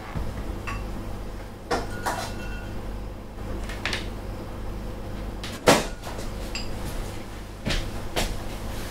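Kitchen clatter: about six separate knocks and clinks as dishes and cupboard doors are handled, one clink ringing briefly near the start, the loudest a sharp knock about two-thirds of the way in. A low steady hum runs underneath.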